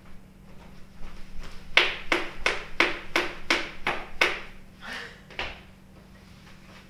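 Hand claps in a quick, even run of about ten, roughly three a second, with the last two slower and softer.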